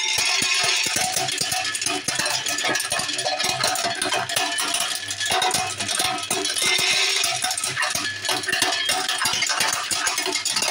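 Hazelnut cracking machine running with a load of hazelnuts, the nuts rattling through the hopper and cracking inside in a dense, continuous clatter of clicks, over a faint steady hum.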